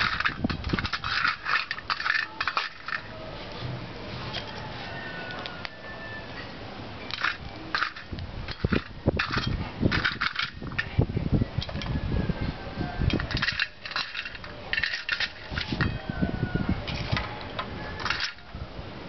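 Lumps of charcoal clinking and clattering as they are handled from a metal bowl and dropped into a clay-lined charcoal stove, in several short bursts with low handling thuds between.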